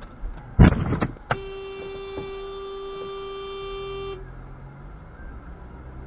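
A sudden loud crash of a vehicle collision, then a car horn sounding on one steady note for about three seconds before cutting off sharply.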